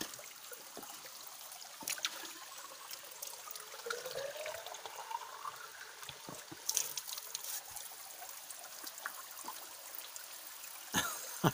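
Water trickling steadily from a spout into a bamboo tube, with a faint pitch rising about four to six seconds in as the tube fills. Small clicks of handling run through it, and a short knock comes near the end.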